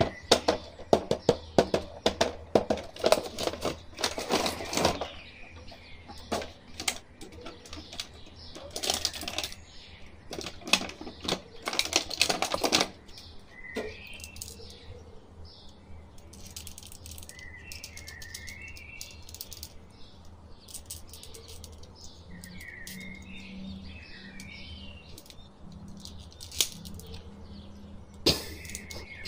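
Plastic toy packaging rustling and clicking as an action figure is pulled out of its box, dense for about the first half. Then only occasional clicks of the plastic figure being handled, with birds chirping now and then in the background.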